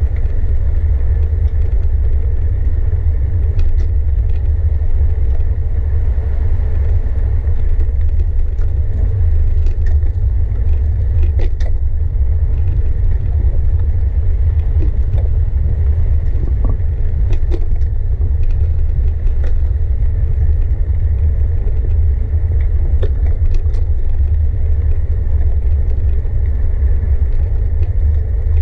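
Steady low rumble of wind buffeting the microphone and tyres running on the road while cycling, with small rattles and clicks now and then.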